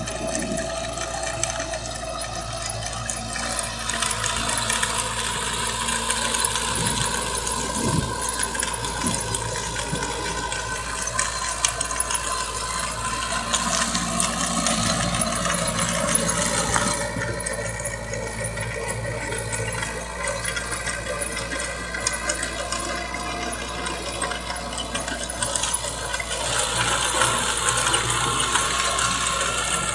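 Kubota MX5000 tractor's diesel engine running steadily under load while the rear rotary tiller churns the soil, with a dense clatter of small ticks over the engine.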